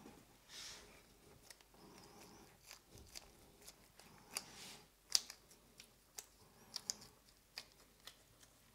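Faint handling sounds of latex-gloved hands working over the cake's blue icing waves and board: scattered small clicks and taps with two soft brushing swishes, the sharpest click about five seconds in.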